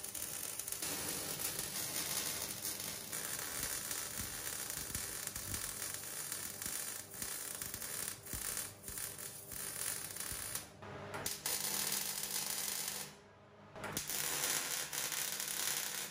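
Wire-feed (MIG) welding arc crackling and sizzling steadily, with brief breaks in the arc near the middle and a pause of about a second toward the end.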